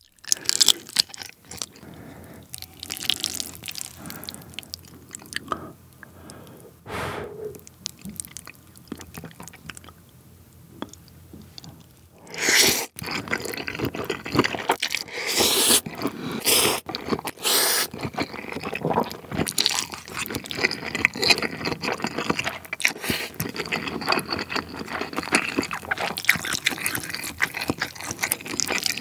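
Close-miked wet chewing of saucy seafood. From about twelve seconds in come repeated loud slurps of jjapaghetti noodles in sticky black bean sauce, with chewing between them.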